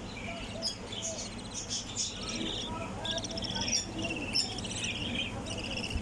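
Small pet birds chirping and chattering in a dense run of short, buzzy, overlapping calls, over a steady low hum.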